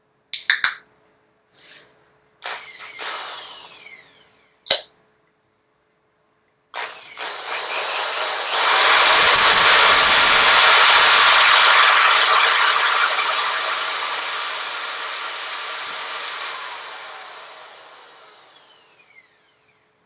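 Electric drill with a small 3/32-inch bit drilling a pilot hole through the tripod's flat brace. After a few handling clicks, the drill starts about seven seconds in, comes up to full speed with a high whine, then winds down with a falling whine once the trigger is let go near the end.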